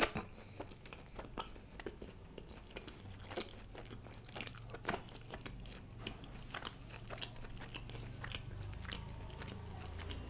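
Close-miked chewing of a mouthful of mutton curry and bread: a sharp bite at the start, then many irregular wet mouth clicks and smacks. A steady low hum sits underneath.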